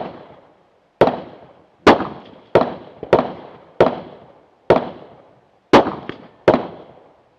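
Rifle shots fired in a steady string, about one every 0.7 to 1 second, eight loud bangs in all, each trailing off in an echo, with a couple of fainter bangs between them.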